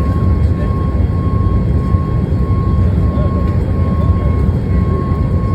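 Boeing 737 MAX's CFM LEAP-1B engines at high thrust in the climb after takeoff, heard inside the cabin: a loud, steady rumble with a constant high whine.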